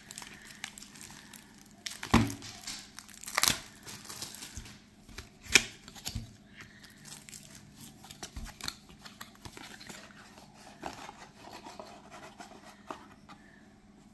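Clear cellophane shrink wrap crinkling and tearing as it is stripped off a small card box, then the box's cardboard flap being opened and the deck handled. Sharp crackles come several times in the first six seconds, with quieter rustling after.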